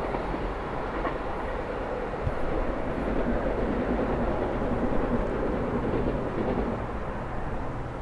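Class 168 Turbostar diesel multiple unit running away along the line, a steady rumble of its underfloor diesel engines and wheels on the rails that eases off toward the end as it draws away.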